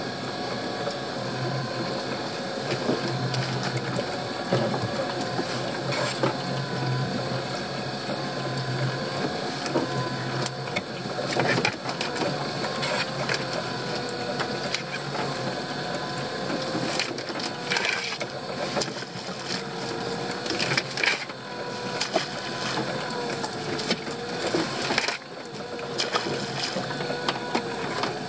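A boat's motor runs steadily with a wavering whine. Over it come knocks and rattles as a netted pot is handled at the gunwale: a few about twelve seconds in and a cluster later on.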